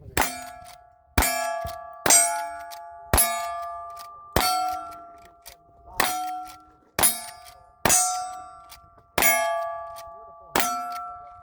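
A string of about ten shots, roughly one a second, each hitting a steel target that rings out with a bright metallic clang and fades before the next.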